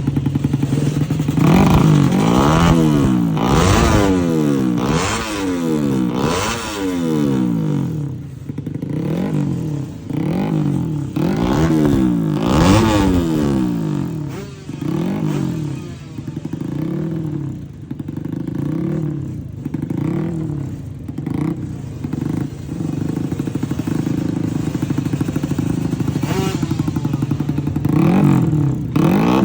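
Drag-race motorcycle engine with a loud open exhaust, idling briefly and then revved again and again, its pitch climbing and dropping about once a second.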